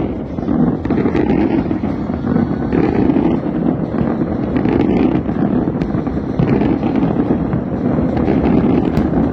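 Fireworks going off in a dense, continuous barrage: a loud steady rumble of bursts with sharp cracks scattered through it, and wind buffeting the microphone.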